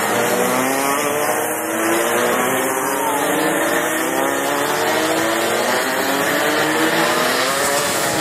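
Several racing kart engines running together at high revs, their overlapping pitches repeatedly rising as the karts accelerate out of the corners.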